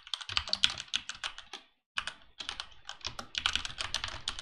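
Fast typing on a computer keyboard: a dense run of key clicks with a brief pause about two seconds in.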